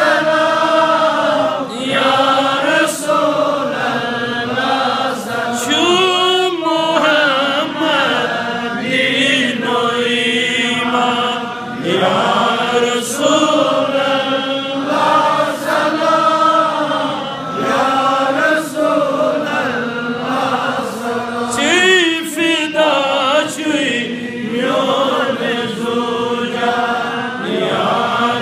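A man's voice chanting solo in a slow, melodic, ornamented style, with long held notes that waver and quick runs of pitch, broken by short breaths.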